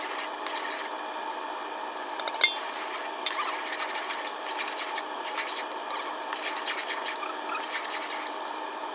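Metal spoon stirring and scraping semolina through boiling sugar syrup in an aluminium pot, with a couple of sharp clicks of the spoon against the pot about two and a half and three seconds in, over a steady hum.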